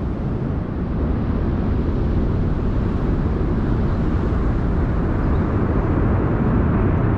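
Delta IV Heavy rocket's three RS-68A engines at liftoff, heard from a distance: a loud, dense, steady rumble, heaviest in the bass, that swells slightly toward the end.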